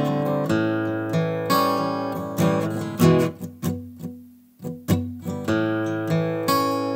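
Solo acoustic guitar played without singing, strummed chords in a steady rhythm. About three seconds in, a few single picked notes ring and die away almost to silence. The strumming starts again near five seconds.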